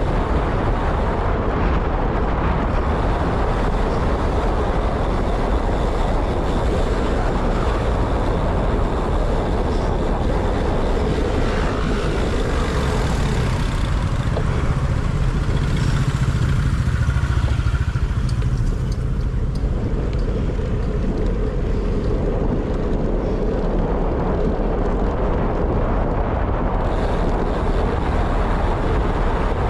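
Steady rush of wind and road noise on the microphone of a camera carried on a moving ride, strongest in the low rumble.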